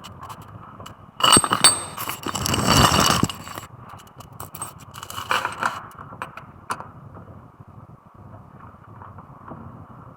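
Metal tools and parts clinking and clattering. A loud clatter with ringing metallic tones comes about a second in and lasts about two seconds, followed by a few lighter clinks and taps.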